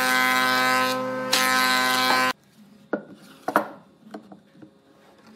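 Thickness planer running with a steady whine while planing a board, cutting off abruptly about two seconds in. Then a few light wooden knocks as blocks of wood are handled on a workbench.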